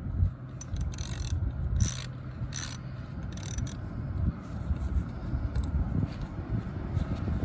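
Hand ratchet wrench clicking in irregular runs while loosening the bolt that holds a power steering reservoir to its bracket, with short bursts of metal scraping.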